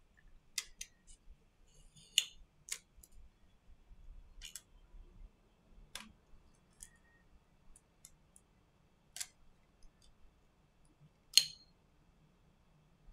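Scattered sharp clicks and taps of metal tweezers and a plastic spudger on the internal parts of a Redmi Note 9 Pro smartphone being taken apart, about a dozen at uneven intervals. The loudest comes near the end, as a small internal part is lifted out.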